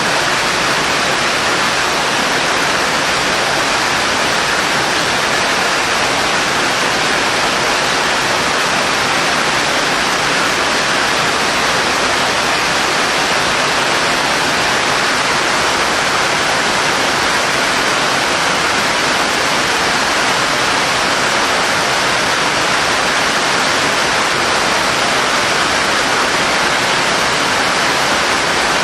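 Steady heavy rain: a dense, even hiss with no single drops, thunder or other sounds standing out, and no change over the whole stretch.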